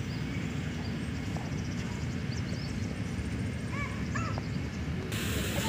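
Birds chirping and calling, a few short arched calls about four seconds in, over a steady low rumble.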